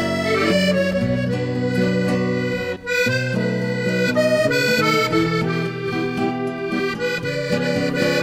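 Accordion playing the melody of a habanera over steady bass notes, with no singing. There is a brief break in the sound about three seconds in.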